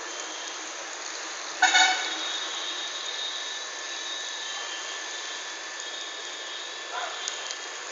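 A vehicle horn sounds one short, loud toot about two seconds in, over a steady background noise. A fainter short sound follows near the end.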